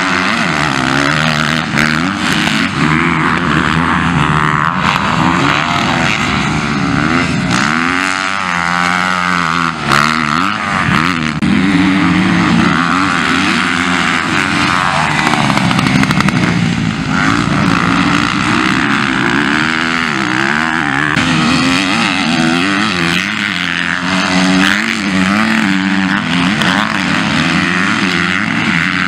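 Motocross dirt bike engines revving hard as bikes ride past one after another, the pitch climbing and dropping again and again with throttle and gear changes.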